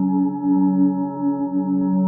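Moog Matriarch analog synthesizer holding a sustained drone of several steady tones, a plain triangle-wave patch played through a Rossum Morpheus filter whose slow modulation makes the tone waver gently.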